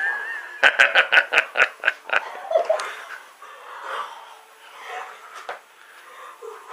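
A person laughing: a quick run of short bursts, about five a second, for a second and a half, then softer.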